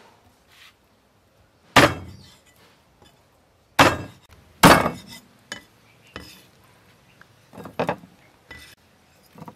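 A cleaver chopping raw fish into pieces on a wooden chopping block. Three heavy chops come in the first five seconds, followed by several lighter knocks.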